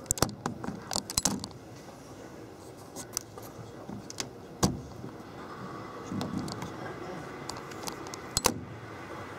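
Scattered sharp clicks and light rattles over a steady low hiss. The clicks come in a quick cluster in the first second and a half, singly near the middle, and as a close pair near the end.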